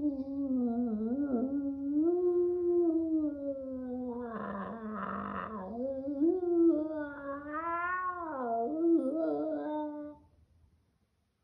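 A long, wavering, meow-like wail that slides up and down in pitch, turns rough and raspy about halfway through, and stops about ten seconds in.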